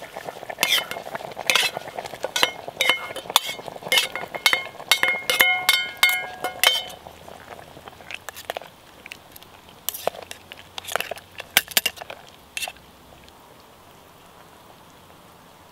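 Metal spoon scraping and clinking against a stainless steel bowl and the rim of a steel billy can as blackberries and nettles are tipped into the simmering stew. A quick run of ringing clinks lasts about seven seconds, followed by a few scattered clicks that stop after about twelve seconds.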